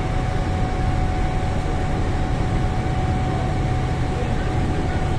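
Passenger riverboat's engines running steadily, a low drone under the rush of water and wind, with a constant whining tone on top.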